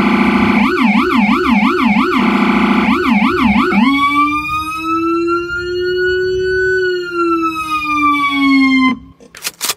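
Emergency-vehicle electronic siren from a Feniex Typhoon siren played through Jack Hammer low-frequency speakers. It opens on a steady buzzing horn tone, switches to fast yelp sweeps with a short break, then to a slow wail that rises and falls, and cuts off about nine seconds in.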